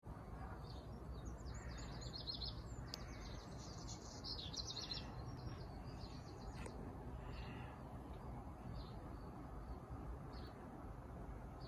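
Small birds chirping and singing, busiest in the first five seconds and sparser after, over a faint steady low rumble of outdoor background noise.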